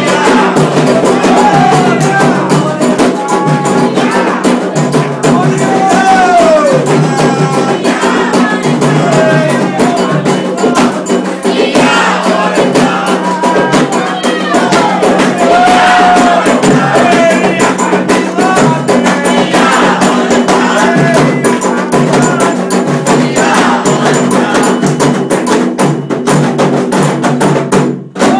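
Ritual drumming with hand percussion and group singing: a steady, dense drum rhythm under call-and-response chant, as played for the orixás in a Candomblé ceremony.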